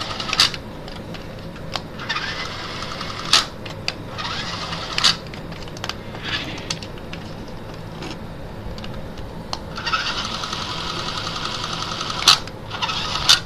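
Small electric motors of a Tech4Kids BattleBots Minotaur remote-control toy robot whirring in several bursts as it is driven, with sharp plastic clicks and knocks between and during the runs.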